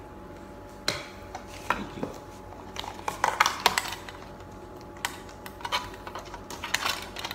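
A plastic fork and a paper instant-noodle cup being handled: scattered light clicks and taps, in small clusters a few seconds in and again near the end.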